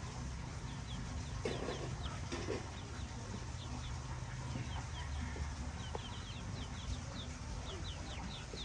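Chickens clucking, with many short, high chirps repeating throughout over a steady low hum.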